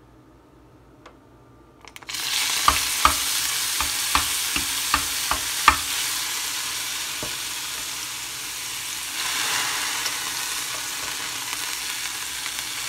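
Water-soaked cordyceps militaris mushrooms frying in hot coconut oil in a nonstick pan. A loud sizzle starts suddenly about two seconds in and keeps going. For a few seconds a utensil taps against the pan as the clump is spread out.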